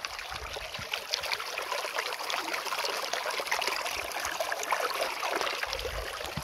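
A small stream at a mountain lake's outlet, running and trickling over rocks with a steady babble.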